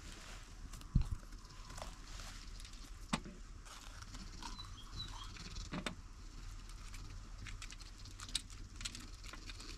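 Knife cutting and coring green bell peppers by hand: scattered crisp cuts and light knocks against a metal tray, with a louder thump about a second in.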